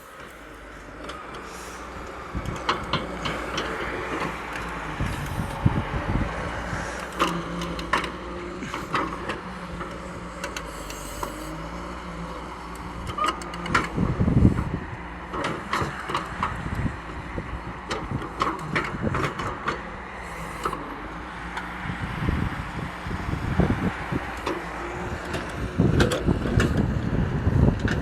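Heavy diesel vehicle engine running steadily, with scattered knocks and clicks throughout and louder low rumbles about halfway through and near the end.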